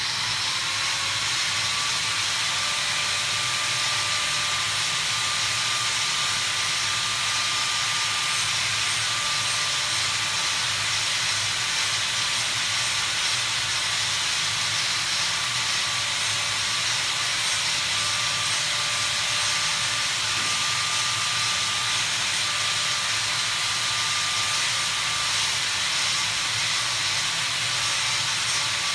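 A steady, even hiss that holds unchanged, with a faint thin whistle running through it.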